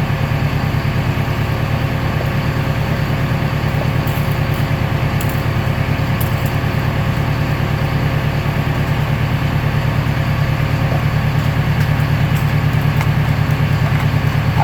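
Recycling baler running, a steady low machine hum with a fast even throb, and a few faint ticks a few seconds in.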